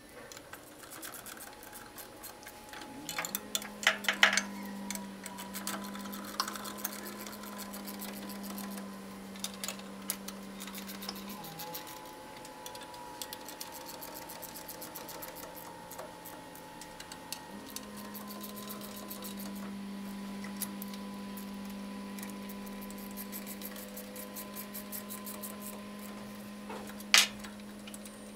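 Ratchet and wrench clicking and clinking on the tie-rod nuts of a small electric motor as they are tightened a little at a time, opposite each other, so that the end covers pull on evenly. A few sharp metal clanks come about four seconds in and again near the end. A steady low hum starts a few seconds in, drops out for several seconds in the middle and then returns.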